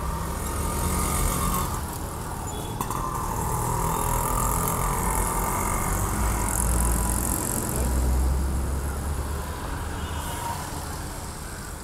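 Street and traffic noise heard from a moving bicycle: a steady low rumble with a hiss over it.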